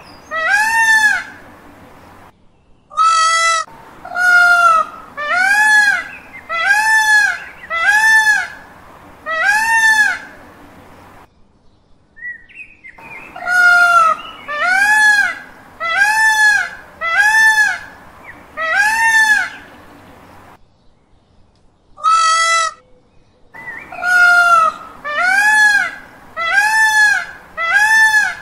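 Male Indian peafowl (peacocks) giving their loud call, a wailing note that rises and falls in pitch, repeated about once a second in runs of several calls with short pauses between runs.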